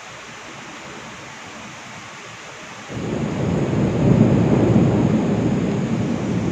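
Heavy monsoon rain hissing steadily. About three seconds in, thunder breaks in suddenly as a loud, low rumble that peaks a second or two later and slowly dies away under the rain.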